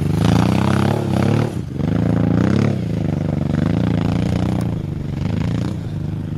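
Large adventure motorcycle engine revving up and down as the bike ploughs through deep sand, the pitch rising and falling with the throttle and dropping briefly about one and a half seconds in.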